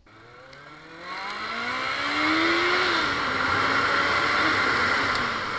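Motorcycle engine accelerating hard, its pitch climbing steadily for about three seconds, then dropping a little and holding high, with wind and road noise building as speed rises.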